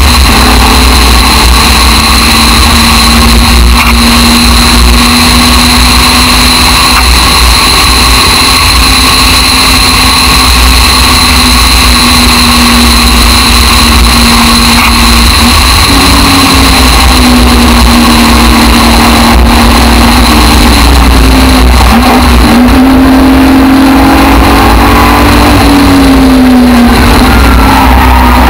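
Aston Martin DBR1 tribute race car's engine running hard at speed, heard from the open cockpit with wind rushing over the car, very loud. The engine note holds steady for the first half, then falls and climbs again several times in the second half as the car lifts off and accelerates through the bends.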